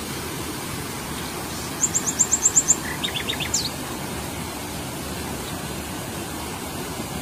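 A small songbird singing over the steady rush of a stream cascading over rocks: a quick run of very high notes about two seconds in, then a lower run of notes and a single falling note.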